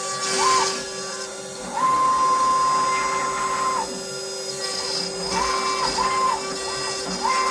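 CNC router cutting oak: the spindle runs with a steady hum while the stepper motors whine as the gantry moves. Each move's whine rises, holds level and falls, with one long move of about two seconds, then several short quick moves near the end.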